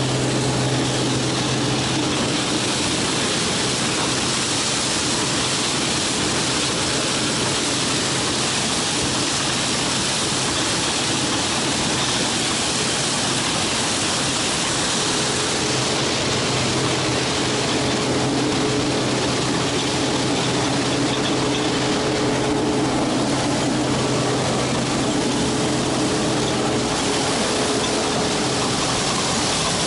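Case 2166 combine harvester running steadily while harvesting corn: a constant machine drone and hiss, with a low hum in it that drops away near the end.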